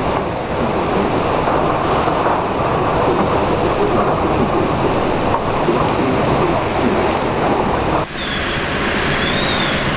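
Typhoon wind and rain making a loud, steady rush of noise. About eight seconds in the sound cuts abruptly to a slightly lower rush of wind, with a few short, high chirps over it.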